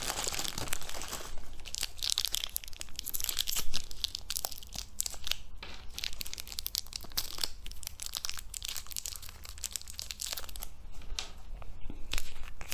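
Candy wrappers crinkling and tearing as fizzy candy tablets are unwrapped by hand, with scattered small clicks and knocks.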